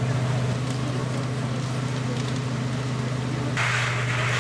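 A vehicle engine running steadily with a low hum, with faint crackling of a fire. A loud hiss comes in near the end.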